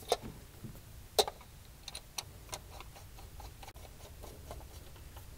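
Hyperspark distributor cap being fitted onto the distributor: two sharp clicks, then a screwdriver turning the cap's hold-down screws with light, irregular ticks.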